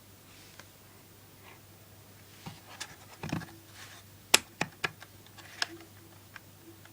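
Plastic Lego pieces being handled: a rustle of pieces, then a few sharp clicks and taps, the loudest a little past the middle.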